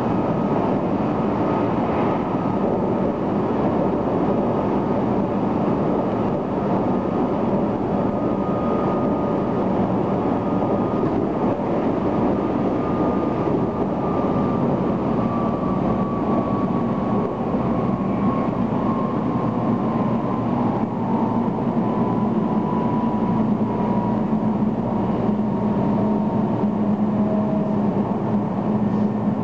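Electric train running at speed, heard from inside the passenger car: a steady rumble of wheels and running gear. A faint whine slowly falls in pitch through the second half, and a low hum grows stronger near the end.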